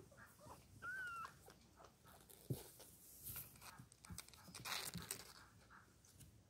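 A nursing kitten gives one short, high squeak about a second in, over faint scattered clicks and rustles of the kittens suckling and shifting against the mother cat's fur.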